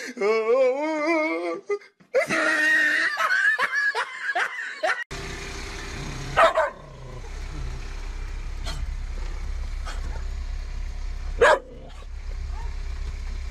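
Wavering, pitched cries in the first two seconds. After that, a dog in a vehicle cab barks sharply twice, several seconds apart, over a low steady hum in the cab.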